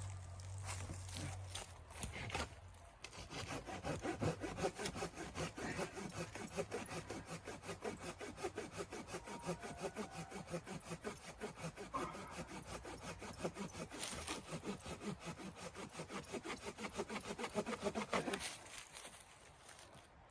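A hand saw cutting through wood in quick, even strokes, about four a second. The sawing starts about three seconds in and stops shortly before the end.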